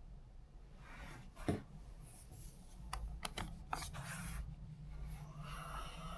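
Rustling and rubbing handling noise with a few sharp clicks, the loudest about a second and a half in and a quick cluster around three to four seconds in, over a low steady room hum.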